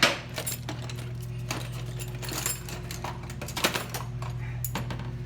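Small metal bolts and pins clinking and tapping against each other and a hard surface as they are handled: a string of irregular sharp clicks over a steady low hum.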